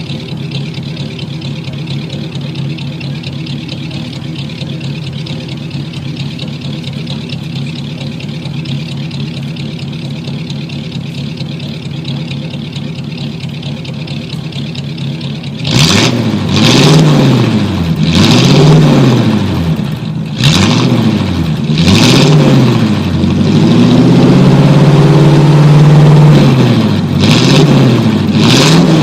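Engine of a 1949 car idling steadily, then about halfway through revved up and down over and over in quick blips, with one longer hold at higher revs near the end.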